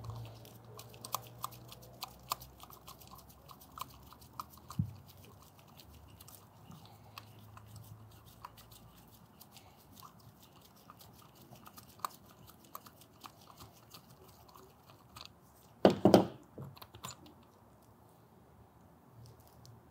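Screwdriver turning the screw threaded into a Graco Fusion PC spray foam gun's cartridge to draw the cartridge out of the fluid head, with many small clicks and ticks of metal and plastic. A louder double knock comes about 16 seconds in.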